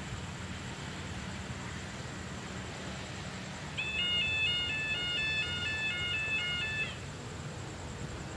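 Low steady hum of the approaching GE diesel-electric locomotive. About four seconds in, a short electronic jingle of stepped beeping tones plays for about three seconds, louder than the hum.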